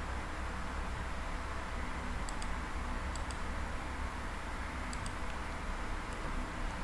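Computer mouse clicking: three quick pairs of clicks, over a steady hiss and low hum.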